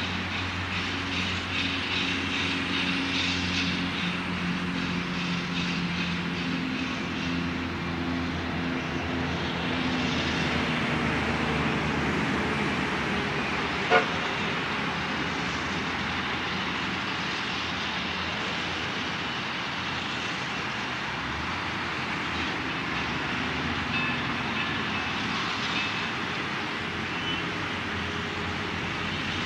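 Colorado & Southern 2-6-0 No. 9 steam locomotive standing in steam with a steady hiss, a low drone that fades out after about seven seconds, and one sharp knock about halfway through.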